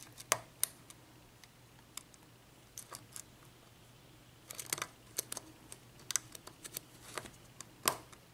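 Scattered small metallic clicks and ticks of a lock pick and tension wrench working the pin stack of an Abus 83/50 padlock with a Kwikset keyway, where a spool pin is being felt and set. The clicks come irregularly, some alone and some in short clusters.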